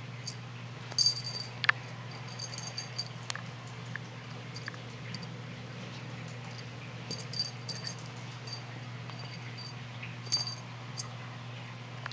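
A cat playing with a feather wand toy on carpet: several short bursts of high tinkling and a few light taps, over a steady low hum.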